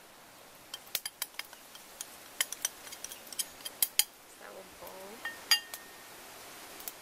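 A metal spoon tapping and clinking against a container as flour is scraped and knocked out into a bowl: an irregular run of sharp taps, then one louder, ringing clink a little past halfway.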